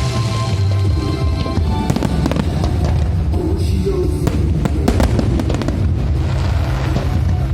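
Aerial fireworks bursting and crackling over loud music with a heavy bass. From about two seconds in there is a dense run of sharp bangs and crackles.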